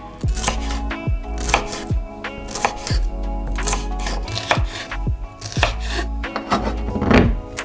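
Knife chopping food on a cutting board in irregular strokes, over background music.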